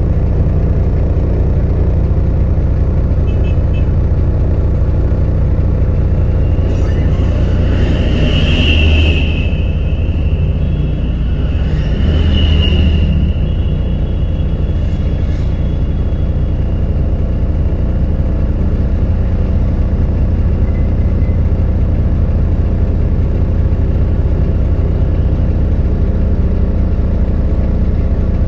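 Heavy diesel machine engine running steadily under load, with a brief high-pitched squeal twice, about eight and twelve seconds in.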